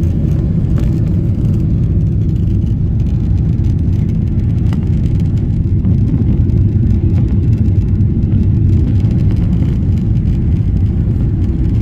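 Steady, loud low rumble of a Ryanair Boeing 737's jet engines and airframe during takeoff, heard from inside the passenger cabin.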